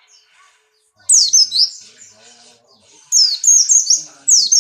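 Pleci Buxtoni white-eye singing in quick runs of high, sharply falling whistled notes: a short phrase about a second in and a longer one from about three seconds in. This is the bird's fast 'nembak' song of a white-eye in strong breeding condition.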